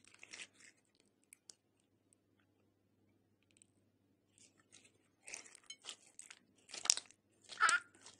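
Glossy pink slime with small beads being squeezed, stretched and folded by hand: short wet squishing sounds. They pause for a few seconds early on, then come in a quick run, with two louder squelches near the end.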